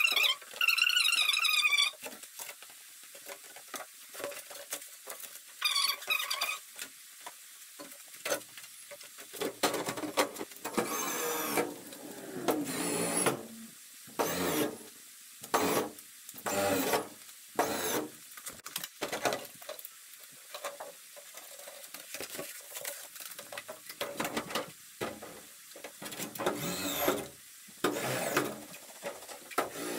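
A large flexible plastic glazing sheet being handled and fitted into a metal door's window frame: the sheet wobbles with a wavering sound in the first couple of seconds, then comes a run of irregular rubs, scrapes and knocks as it is worked into place.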